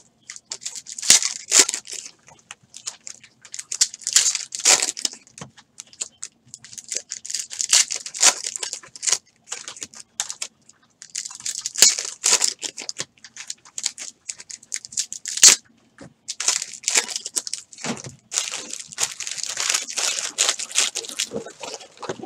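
Foil trading-card packs being torn open and their wrappers crinkled by hand, in irregular bursts of tearing and crackling with short pauses between.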